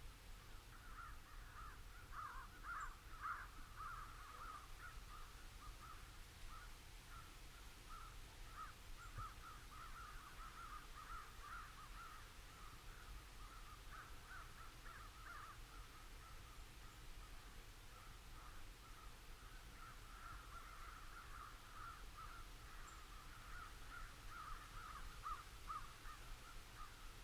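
Crows cawing faintly, many calls overlapping almost without a break, thinning out for a few seconds past the middle.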